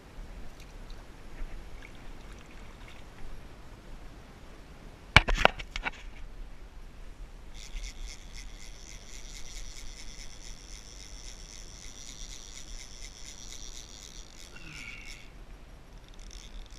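A few sharp, loud knocks about five seconds in. Then, from about seven and a half seconds, a fly reel's clicker drag buzzes steadily for about seven seconds as a hooked fish pulls line off it.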